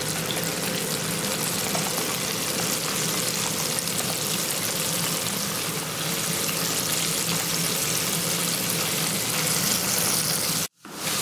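Breaded bay scallops deep-frying in oil at about 300 degrees in a cast iron pot: a steady, vigorous sizzling and bubbling as the moisture cooks out of them. The sound cuts out for a moment near the end.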